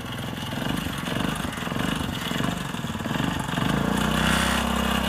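Small motorcycle engine running at low revs as the bike is eased out, the revs rising and falling, then holding a steadier, slightly higher note near the end.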